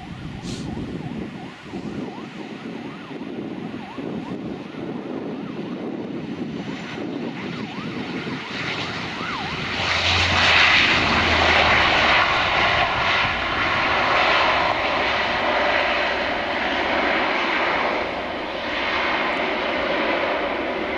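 Bombardier Dash 8 Q400's twin turboprop engines and propellers running as the airliner touches down and rolls out along the runway. The noise swells about ten seconds in and stays loud.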